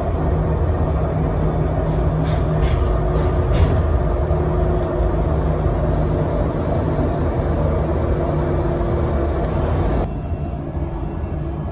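Cabin noise inside a Solaris Urbino 18 electric articulated bus: a steady low rumble with a faint hum that comes and goes, and a few light rattles. About ten seconds in, the sound drops suddenly and turns thinner.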